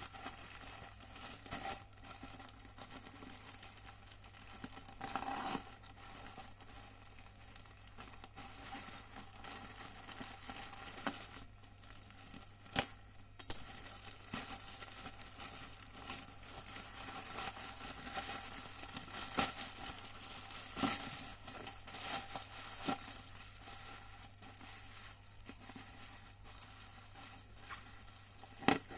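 Packaging of an iPhone 14 box being handled and opened: crinkling and tearing with scattered sharp clicks and taps, the loudest about thirteen seconds in, over a faint steady low hum.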